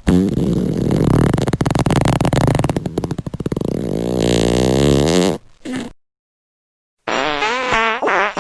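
Fart sound effects. The first is a long, loud, rattling fart of about five and a half seconds. Its flutter quickens in the middle, and it turns into a pitched squeak near the end. After a second of silence, a second fart starts, squeakier, with a wavering pitch.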